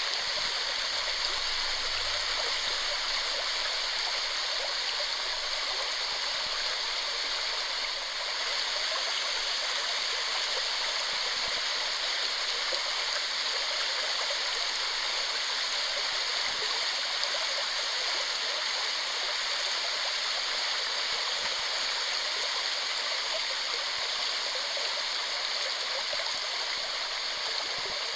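Waterfall: water falling and rushing in a steady, even hiss that holds without change.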